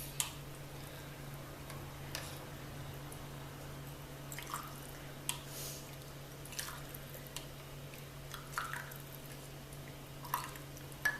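Faint drips and light clinks of hot ginger soup being stirred and served from the pot, a few scattered sounds a second or two apart, over a steady low hum.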